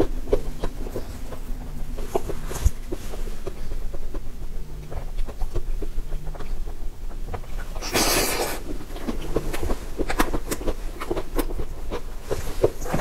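Close-miked ASMR eating sounds of mousse cake: many small wet mouth clicks and smacks as it is chewed, with light taps of a metal spoon. About eight seconds in there is one short, loud hissing burst.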